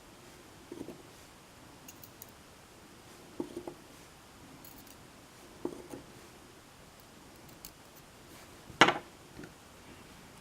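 Scattered small clicks and light knocks of a pin tumbler lock and its parts being handled during reassembly, with one sharper, louder knock near the end.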